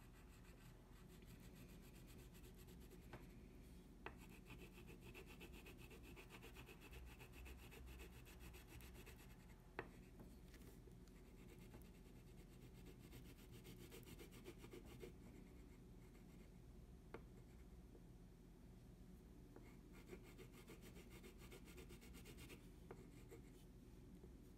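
Faint crayon strokes rubbing on paper, pressed firmly over several layers of wax crayon already laid down, with a few soft clicks.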